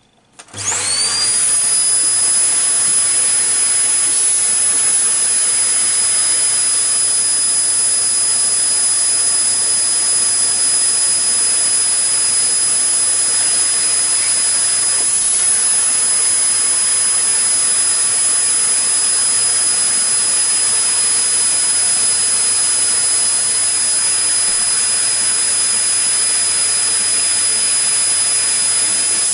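An electric motor switches on about half a second in; its high whine rises to speed within a second, then it runs steadily and loudly with an even hiss.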